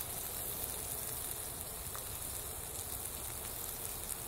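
Campfire embers under a cooking grill giving a quiet, steady hiss, with a faint crackle about two seconds in.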